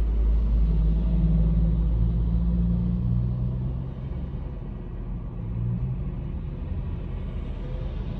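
Car engine and road rumble heard from inside the cabin while driving: a steady low rumble with a hum, louder for about the first four seconds, then easing off.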